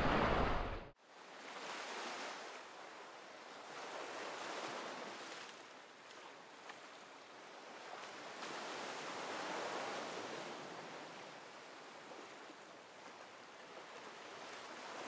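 Sea waves washing in and drawing back in slow surges, swelling and fading every few seconds. Before that, a loud rushing rumble cuts off abruptly about a second in.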